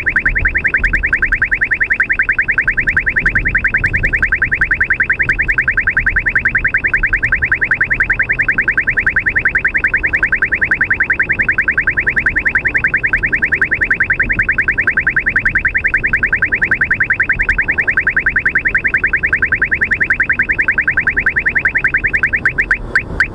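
Uniden R3 radar detector sounding its Ka-band alert for 34.7 GHz radar from oncoming traffic: a fast, steady string of short, high chirping beeps over low road noise. Near the end the beeps slow to a few a second as the signal weakens.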